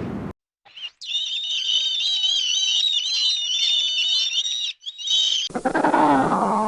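High-pitched bird chirping, several warbling calls overlapping, for about four seconds after a short silence. About five and a half seconds in, a lower animal call with bending pitch takes over.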